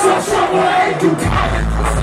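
Live hip hop music played loud over a concert PA, heard from within the crowd. The deep bass is missing at first and kicks back in a little over a second in.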